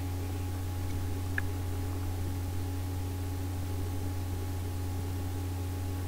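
Steady low electrical hum with a faint hiss, unchanging throughout, and no speech.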